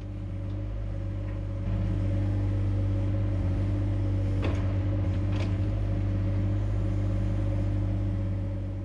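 Mini excavator's diesel engine running steadily, growing louder about two seconds in, with a couple of light knocks in the middle.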